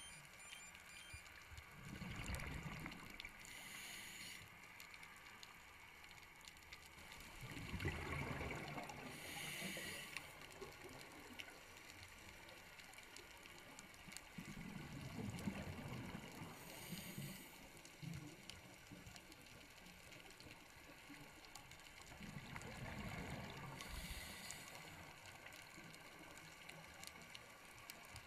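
Scuba diver breathing through a regulator heard underwater: each exhale's bubbles gurgle low, and a short hiss of the regulator follows, repeating four times at about seven-second intervals.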